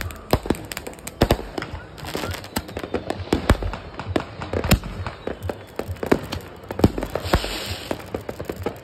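Fireworks going off: many sharp pops and bangs at irregular intervals over a steady crackle, with a short hiss about seven seconds in.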